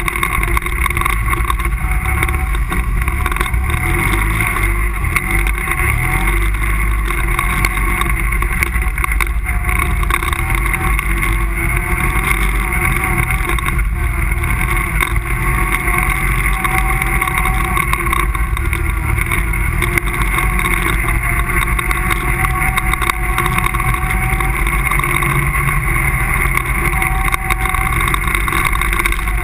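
ATV engine running steadily while the quad rides along a dirt trail, with a heavy, continuous low rumble from the ride.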